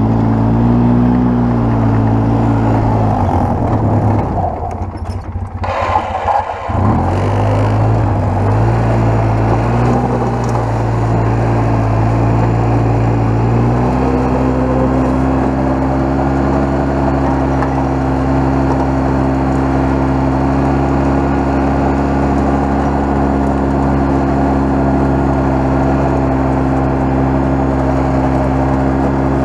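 2002 Polaris Sportsman 700 ATV's twin-cylinder four-stroke engine running as the quad is ridden. Its pitch rises and falls over the first few seconds and briefly drops away about five seconds in. It then picks up again and holds a steady speed from about fourteen seconds in.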